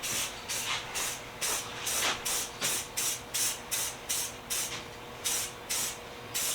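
Aerosol spray paint can spitting out gloss purple paint in short, quick hissing bursts, about three or four a second.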